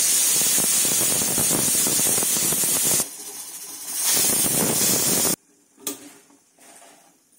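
Aluminium pressure cooker whistling: steam hisses loudly out from under the lifted weight valve. The first blast lasts about three seconds, it dips, and a second blast starts about four seconds in and cuts off suddenly. This is the cooker at full pressure.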